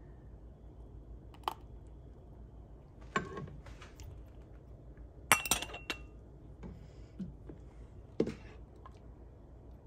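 A stainless steel canning funnel and glass canning jars clinking and knocking as the funnel is moved from jar to jar. There are about half a dozen scattered clinks, the loudest a ringing metallic clink about five and a half seconds in.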